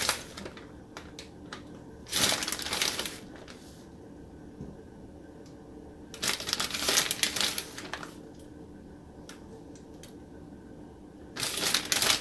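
Plastic bag of shredded cheese crinkling in three bursts of about a second each, with quieter handling between.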